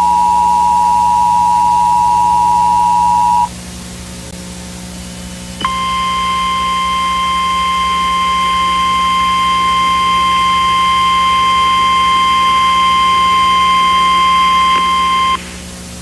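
The two-tone Emergency Alert System attention signal holds steady and cuts off about three and a half seconds in. After a short stretch of hum and hiss, a single harsher steady alert tone, like the weather-radio warning tone, starts about six seconds in and holds for nearly ten seconds before stopping abruptly. A low electrical hum and hiss sits underneath throughout.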